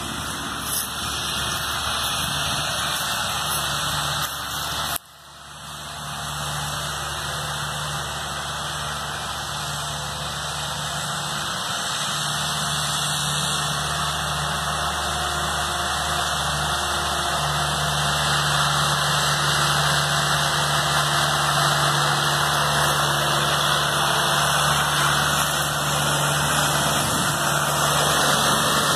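Mahindra 4025 tractor's diesel engine running steadily, growing louder toward the end as it comes closer. The sound drops out sharply for a moment about five seconds in.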